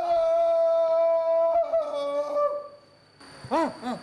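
A man's Tarzan yell: one long, loud, held cry that wavers and breaks up over its last second. After a brief pause, a quick run of rising-and-falling whoops starts near the end.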